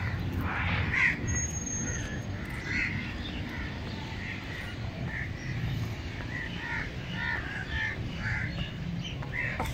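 Crows cawing repeatedly in short calls, over a steady low background rumble.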